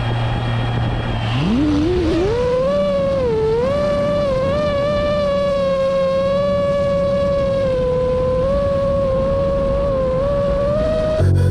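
Song intro: a synthesizer lead tone slides up in pitch about two seconds in, then holds with small wavers over a steady low drone. A rhythmic beat and bass come in just before the end.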